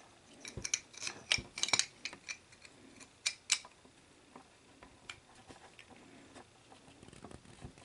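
Small metal clicks and ticks of a screw and metal parts being handled as a screw is fitted into a Betamax VCR's head drum assembly: a scattered run of clicks in the first few seconds, then only a few faint ticks.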